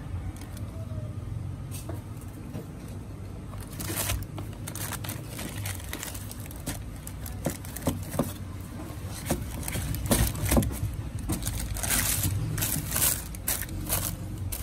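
Tissue paper crinkling and rustling as sneakers are handled in their box, in sharp, irregular crackles that get busier in the second half, over a low steady rumble.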